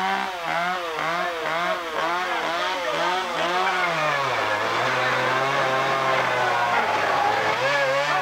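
Chainsaw engine revved in quick pulses about twice a second, then settling to a steady low idle about four seconds in, with the revs picking up again near the end.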